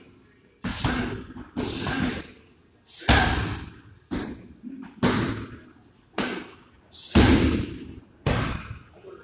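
Kicks and punches slapping hard into muay thai pads, about a dozen sharp strikes at an uneven pace, each with a short echo.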